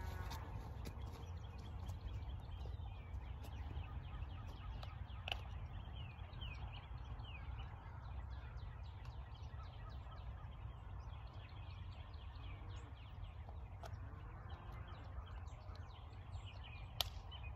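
Quiet rural morning ambience: wild birds calling, with a run of quick falling chirps in the middle, over a low steady rumble. A sharp click sounds near the end.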